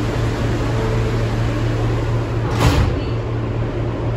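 R160B subway car side doors sliding shut and meeting with a single knock about two and a half seconds in, over the car's steady low hum.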